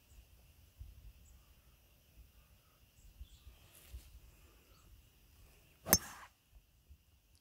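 A 5-wood striking a golf ball off the tee: one sharp crack of the clubhead on the ball about six seconds in, trailing off briefly.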